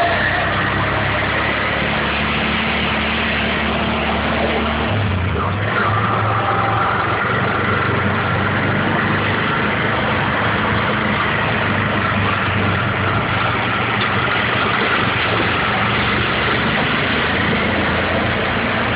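Three-wheeled auto-rickshaw (mototaxi) engine running steadily as it drives, heard from inside its cab; its note drops about five seconds in.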